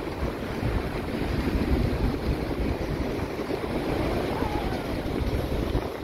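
Wind buffeting the microphone over the steady wash of surf breaking on a sandy beach, with gusty low rumbles.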